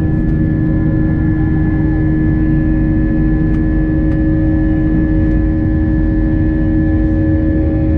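Airbus A320 jet engines at takeoff thrust during the initial climb, heard from inside the cabin: a loud, steady roar with a constant hum of tones over it.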